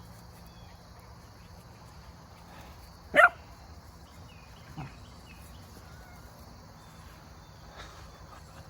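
A pet's single sharp, loud cry about three seconds in, then a shorter, fainter cry that falls in pitch near five seconds.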